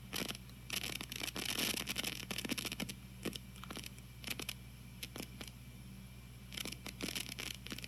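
Electrical interference from a TG-TEK tablet's headphone output heard through a speaker: irregular bursts of hissing and crackling over a steady low hum. It is set off by the tablet's downloading and multitasking, and only happens with headphones plugged in.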